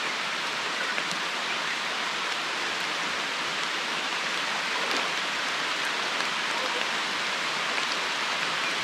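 Heavy rain falling steadily: an even hiss with no let-up.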